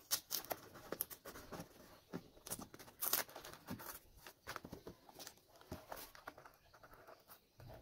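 Faint handling of paper and card: scattered small clicks, taps and rustles as fingers peel and press paper strips on a handmade paper model car body.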